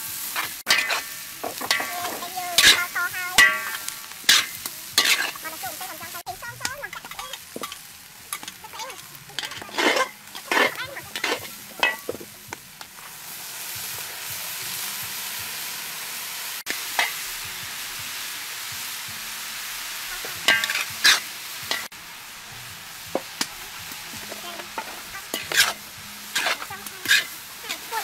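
Metal spatula scraping and clanking against a large steel wok as a big batch of red chilies is stir-fried, in repeated strokes with some metallic ringing. About halfway through, a steady sizzle swells for several seconds as liquid is poured into the hot wok, then the scraping strokes resume.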